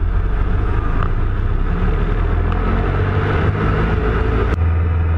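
Loud, steady cabin noise inside the cockpit of a small light aircraft in flight: a low drone with rushing air. About four and a half seconds in there is a sharp click, and the low drone changes.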